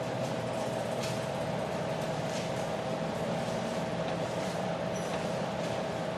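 Steady background hiss with a constant mid-pitched hum tone, and a few faint soft rustles.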